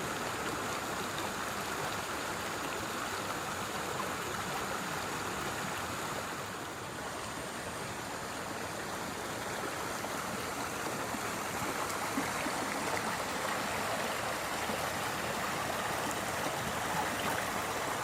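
Forest stream rushing and gurgling steadily over rocks and pebbles as it flows downhill, with a slight dip in level partway through.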